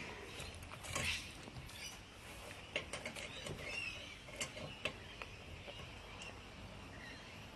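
Faint, scattered metallic clicks and clinks of a lug wrench being worked on a car's wheel nuts.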